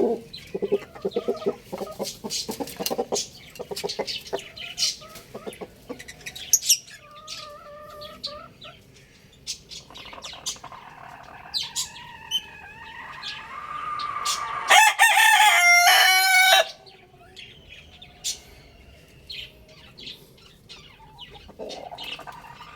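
Rooster crowing once: a long call that builds and is loudest about fifteen seconds in, then cuts off suddenly. Clucking, other bird calls and scattered sharp clicks come before it.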